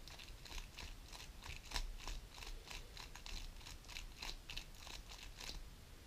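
GAN 11 M Pro magnetic speedcube being turned quickly by hand, its plastic layers clicking several times a second as a left-handed four-move sequence is repeated.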